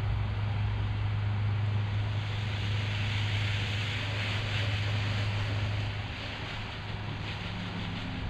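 Hiss of a soft wash hose spraying water onto vinyl house siding, swelling in the middle and easing about six seconds in, over a steady low mechanical hum.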